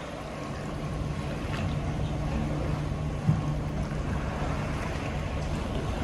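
Ship's swimming-pool water sloshing in waves and washing over the pool edge onto the deck, with wind buffeting the microphone and a steady low hum underneath. A brief thump about three seconds in.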